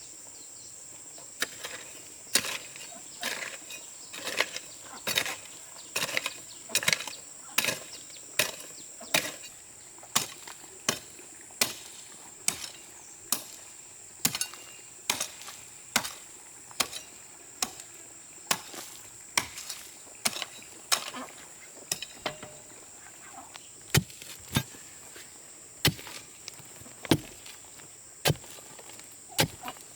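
A hand tool chopping with sharp, repeated strikes, about one a second, over a steady high drone of insects.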